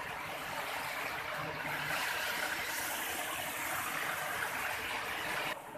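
Steady rushing of running water from a forest stream, which drops away abruptly near the end.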